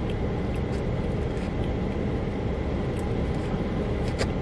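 Steady low rumble of a car cabin with the vehicle idling. A few faint clicks of plastic forks against a foam takeout container, the clearest near the end.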